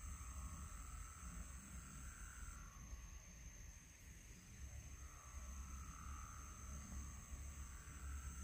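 Faint forest-stream ambience: a steady high-pitched insect drone, with a lower drawn-out animal call heard twice, each lasting a few seconds, over a low rumble.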